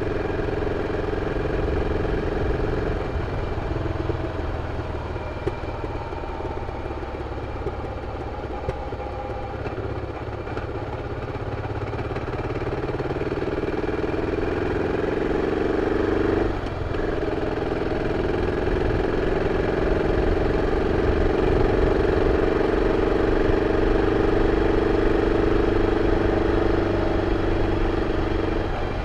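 BMW F 650 CS motorcycle's single-cylinder engine running through its original exhaust, under way. The engine note changes about three seconds in and climbs gradually. It breaks off briefly about two-thirds through, as at a gear change, then comes back louder and steady.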